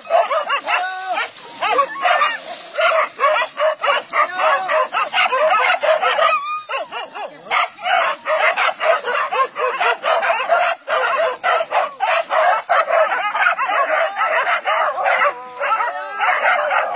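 A pack of hunting dogs barking and yelping, many at once and without pause, as they set on a cornered wild boar.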